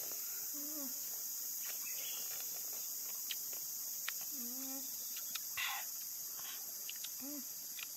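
A steady, high-pitched drone of jungle insects. Over it come three short sliding 'mm' sounds of someone wincing at a sour bite, a few small mouth clicks from chewing, and a brief hiss of breath.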